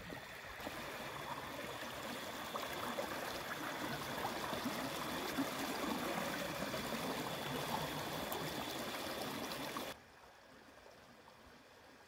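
Shallow stream water running and trickling over rocks around stone stepping stones, a steady babble that cuts off suddenly about ten seconds in, leaving a much quieter background.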